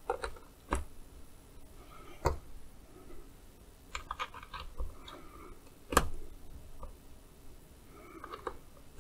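Scattered sharp clicks and knocks of a metal BNC adapter being pushed into a multimeter's input jacks and a BNC cable connector being fitted onto it. The loudest click comes about six seconds in.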